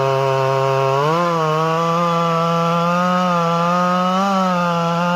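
Large two-stroke chainsaw running at high throttle while cross-cutting a big red oak log into cookies; its pitch rises about a second in and then wavers slightly as the chain works through the wood.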